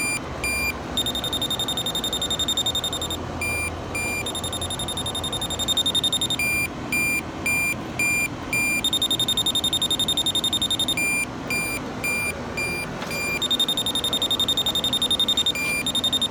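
Handheld UEI RLD15 refrigerant leak detector alarming at a condenser coil. Stretches of rapid high-pitched beeping alternate with runs of slower, lower single beeps, about four a second. The alarm signals refrigerant leaking from the coil.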